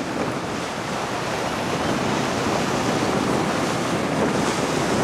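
Steady rush of wind on the microphone mixed with sea water rushing past a moving boat.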